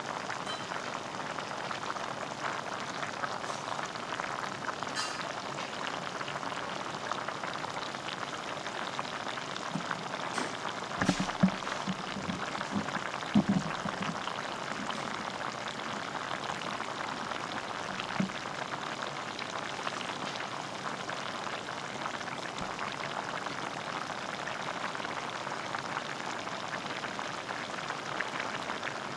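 Braised chicken and aged kimchi simmering in a pot, the sauce bubbling and crackling steadily. A few brief, dull knocks come between about 11 and 14 seconds in, with one more a little later.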